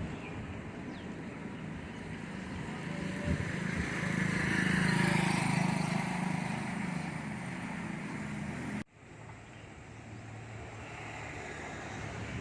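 A road vehicle passing by on the street, its engine and tyre noise swelling to a peak about five seconds in and then fading. About nine seconds in the sound cuts off abruptly and resumes fainter.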